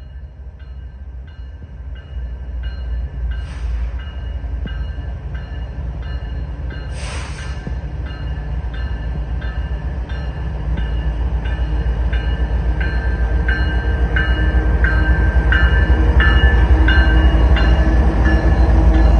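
BNSF freight train approaching, its low diesel rumble growing steadily louder, while a bell clangs about twice a second. Two brief hisses come a few seconds apart in the first half.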